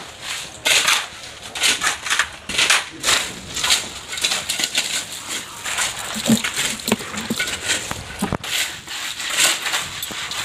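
Hoe and shovel blades scraping and chopping through a wet sand, gravel and cement mix on a concrete floor, hand-mixing concrete. The strokes come in rough, irregular scrapes about once or twice a second.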